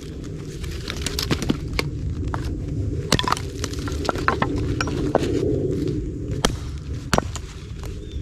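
Pine wood being chopped and broken up for kindling: sharp, irregular knocks and cracks, a few of them louder strikes, over a low steady rumble.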